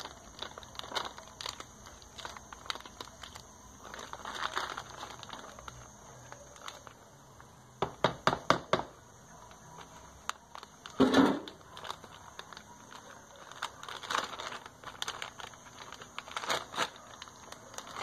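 Plastic bag of wheat flour crinkling and rustling on and off as it is handled and flour is poured from it into a glass. A quick run of sharp clicks comes about eight seconds in, and a louder knock about eleven seconds in.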